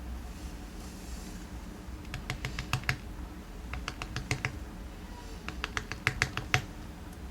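Quick, light clicks and taps in irregular clusters from the small metal parts of a dismantled dimple lock cylinder being handled.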